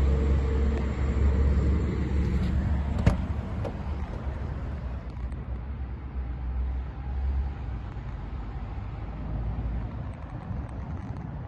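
Low, steady rumble with a noisy hiss over it, easing in the second half, and one sharp click about three seconds in.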